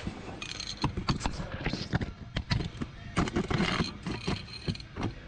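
Short spells of arc-welding crackle with scattered sharp clicks and knocks, as tack welds go onto a V-band exhaust flange.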